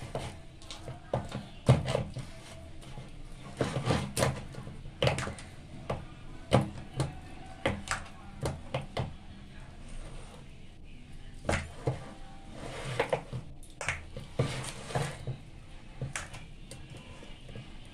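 Hand mashing and kneading a soft semolina, flour and banana dough in a steel bowl: irregular slaps and knocks of the hand against the dough and the bowl.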